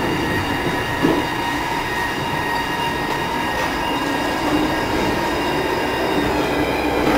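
City tram running along its rails, heard from inside the car: a steady rumble with a high, steady whine over it and a single bump about a second in.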